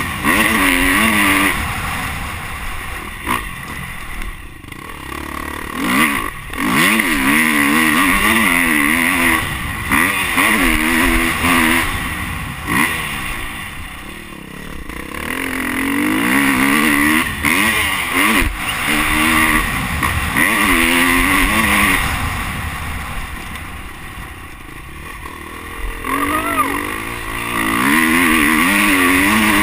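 Dirt bike engine being ridden hard, revving up and down with the throttle in several long loud pulls and easing off between them.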